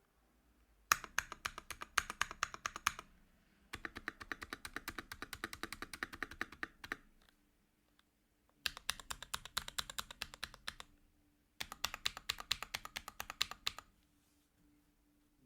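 Typing on a polycarbonate NK65 Entry Edition mechanical keyboard with lubed JWK FFF linear switches, filmed, and doubleshot ABS keycaps. There are four runs of rapid keystrokes with short pauses between them, the first starting about a second in.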